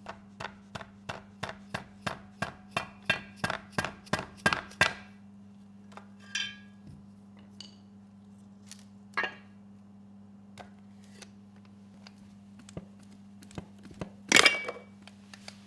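A hammer tapping a long punch, about three strikes a second for some five seconds, driving the old oil seal out of a Briggs & Stratton Quantum engine's crankcase cover. Then scattered metal clinks, and one louder clatter near the end.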